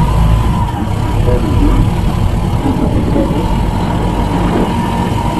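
Motorbike running on the move, a loud, steady rumble of engine and road noise.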